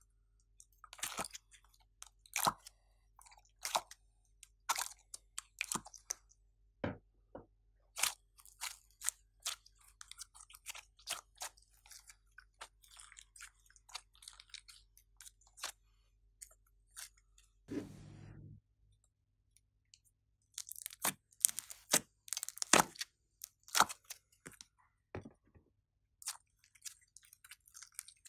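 Glossy slime being squished, stretched and folded by hand: a dense, irregular run of sticky clicks and small pops, with one duller, longer thud about two-thirds of the way through.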